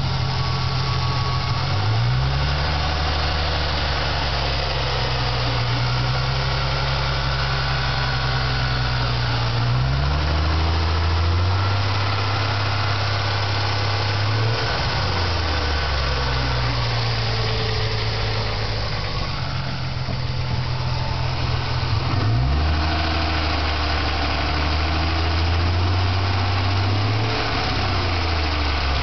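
1997 Ford Mustang's 3.8-litre V6 running, its speed raised and lowered between idle and a little above several times and held steady in between. The owner hears a noise in the 1000 to 1500 rpm range and can't tell whether it is a weak lifter or a bad rod bearing knocking.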